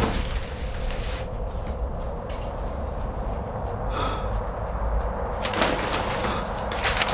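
Sheets of paper rustling as they are handled and sorted, with rustles at the start and again in a couple of bursts near the end, over a low steady rumble.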